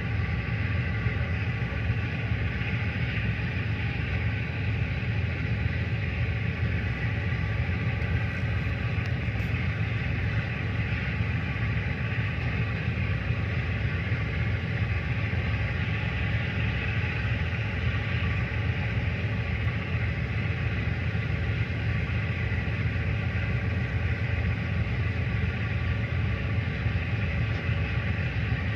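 Tugboat engine running steadily: a constant low rumble with a faint even hum above it.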